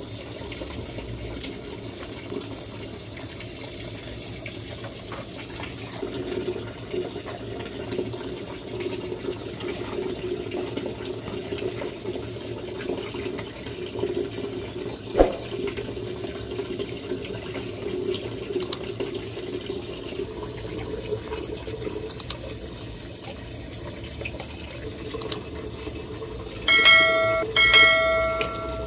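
A large aluminium pot of soup at a rolling boil, bubbling steadily, with one sharp knock about halfway through and a few light clicks. Near the end, two short ringing tones sound one after the other.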